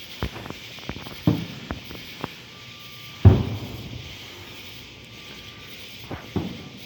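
Fireworks going off: a string of sharp bangs, each trailing off in a low rumbling echo, the loudest about three seconds in.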